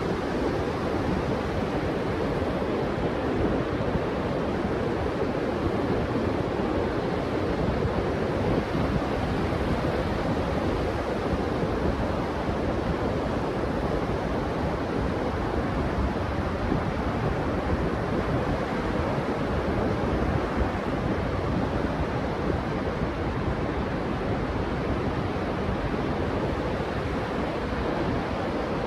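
Steady rush of Pacific surf breaking on a sandy beach, mixed with wind on the microphone.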